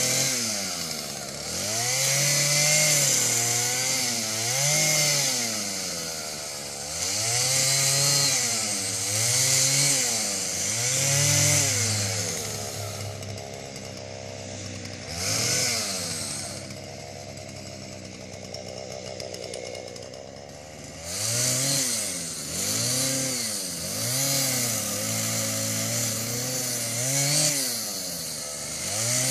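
Jonsered CS2234S two-stroke chainsaw revving up and dropping back again and again as it cuts spruce branches. About halfway through it idles for several seconds with one brief rev, then the cutting revs resume.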